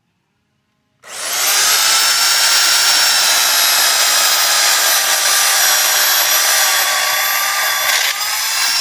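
Electric chainsaw switched on about a second in, its motor whining loud and steady at full speed, the pitch rising slightly near the end.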